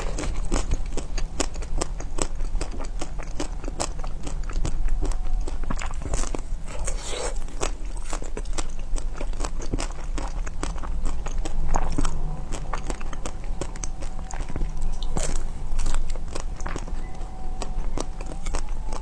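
Biting and chewing a frozen ice cream bar with a hard green coating, picked up by a clip-on microphone: a dense run of sharp crunching and crackling clicks, with several louder bites among them.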